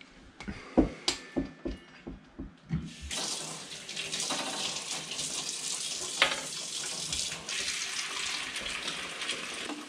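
A string of short knocks and clatters, then about three seconds in a kitchen faucet starts running steadily into a white plastic bucket, filling it with water.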